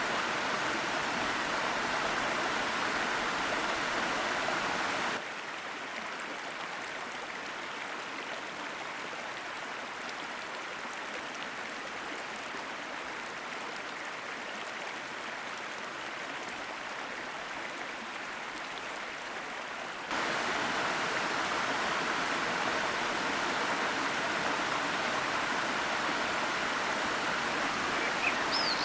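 Sopit Waterfall's cascading water rushing steadily. About five seconds in the rush cuts suddenly to a quieter, duller sound, and it cuts back to the fuller rush about twenty seconds in.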